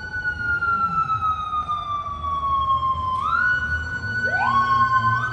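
Japanese police sirens wailing. A tone climbs quickly, holds, then sinks slowly before climbing again about three seconds in, and a second siren starts its climb about four seconds in, out of step with the first.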